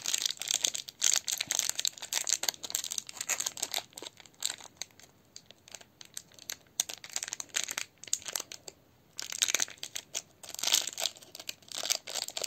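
Wrapper of a small toy packet crinkling and rustling as fingers pick and pull at it, trying to tear it open; the packet is stubborn and won't open. The crinkling stops for a moment about three-quarters of the way through, then starts again louder.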